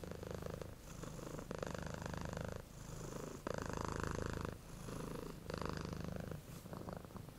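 Domestic cat purring close up, in steady waves that rise and fall with each breath in and out.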